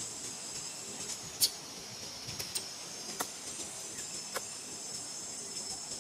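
Dry leaves crackling in a few short sharp snaps as a mother monkey and her newborn shift on them, the loudest about one and a half seconds in, over a steady high hiss.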